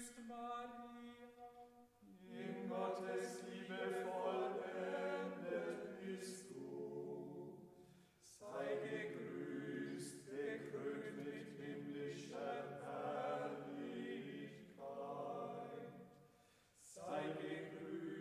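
Several voices singing a hymn unaccompanied, in phrases of held notes with short breaks between them.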